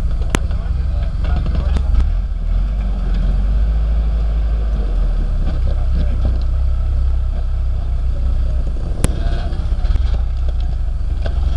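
Off-road truck's engine running steadily at low revs as it crawls over a boulder, with a sharp knock just after the start and another about nine seconds in.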